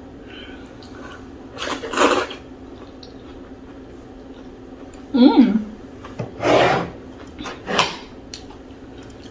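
Loud slurping while eating fufu in okra soup: three noisy slurps about two, six and a half and eight seconds in, and a short voiced sound falling in pitch about five seconds in. A steady low hum runs underneath.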